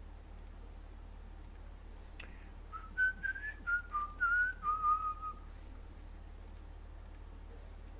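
A person whistling a short tune of about seven notes that step up and down, lasting under three seconds and starting just after a single click.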